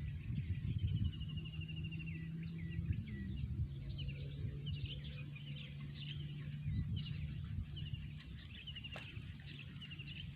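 Wild birds chirping and trilling over and over, over a steady low hum and rumble.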